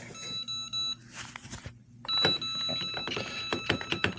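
Phomemo M120 thermal label printer giving out steady high tones twice: a short one near the start and a longer one from about two seconds in. Between them are clicks and the rustle of the label roll being handled.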